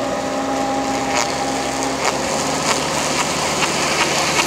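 Car engine running while its front tyre spins in soft mud without grip, with a gritty crackling haze from the churned mud and grass. The engine note drops to a lower pitch about two seconds in.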